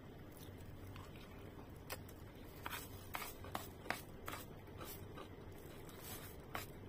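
Faint close-up eating sounds: chewing a mouthful of food with scattered mouth clicks and ticks, and a plastic spoon scraping in a food container.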